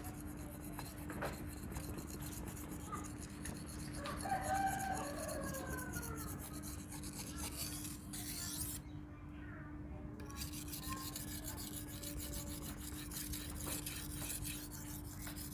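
Spring-steel knife blade being stroked back and forth on a wet whetstone, a steady rasping rub, over a constant low hum. A rooster crows in the background about four to six seconds in.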